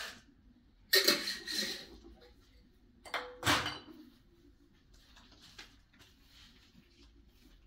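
Handling noises: a sharp clunk about a second in with rustling after it, and a heavier knock with a low thump about three and a half seconds in, then faint rustling, like cage parts and objects being moved and set down.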